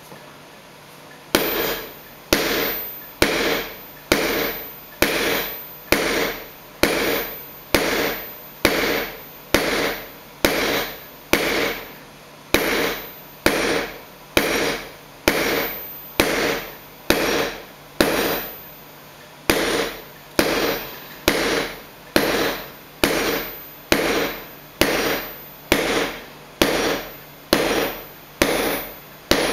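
Hand hammer blows on a hot silver bar against an anvil, drawing the bar out: a steady run of strikes about one a second, each ringing briefly. The blows start about a second in and pause once for about a second a little past halfway.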